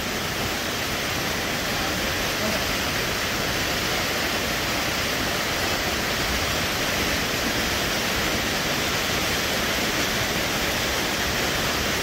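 Waterfall cascading down a rock face: a steady, even rush of falling water.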